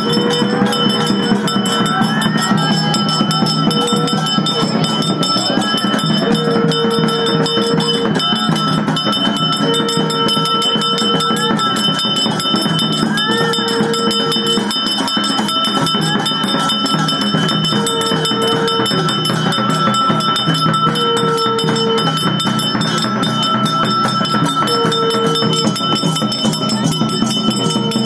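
A bell ringing steadily throughout, its ringing tones held level. A long held note comes back about every three to four seconds, over a murmur of crowd voices.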